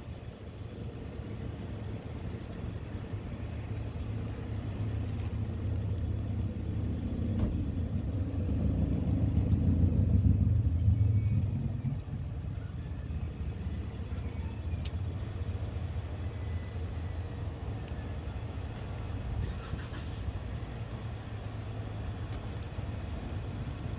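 Low vehicle rumble from traffic, swelling to its loudest about ten seconds in and falling away quickly a moment later, as a vehicle passes close by. A few faint clicks sound over it.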